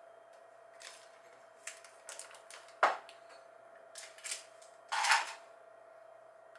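Kitchen utensils and small items being handled and set down on a counter: scattered clicks and knocks, with a sharp knock about three seconds in and a short clatter about five seconds in, over a faint steady hum.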